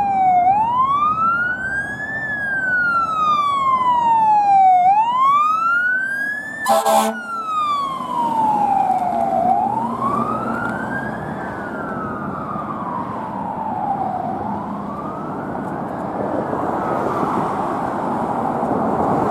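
Fire engine siren in a slow wail, rising and falling about every four seconds, with one short air horn blast about seven seconds in. The wail fades away near the end, leaving the rush of road and engine noise.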